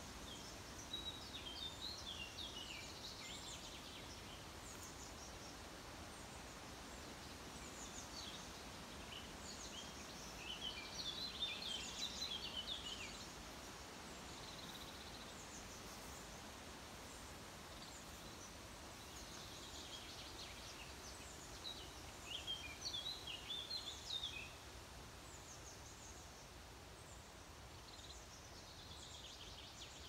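Small songbirds singing three bursts of quick, high, twittering phrases over a faint, steady hiss of forest ambience.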